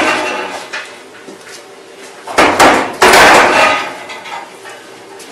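Loud clanks and knocks of a metal water heater tank being shifted while still full of water, in two bursts about two and a half and three seconds in.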